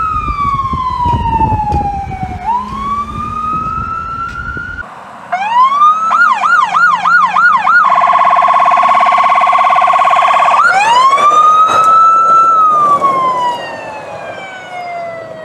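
Electronic emergency-vehicle sirens. First a fire brush truck's siren wails down and back up over engine rumble. About five seconds in, a Chevrolet fire-department SUV's siren rises into a fast yelp, switches to a rapid warble, then returns to a slow wail that rises and falls away.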